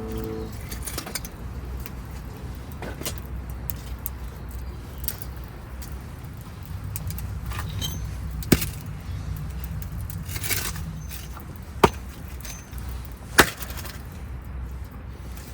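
A few sharp, separate knocks of camp work, the loudest about eight and a half, twelve and thirteen and a half seconds in, over a steady low rumble.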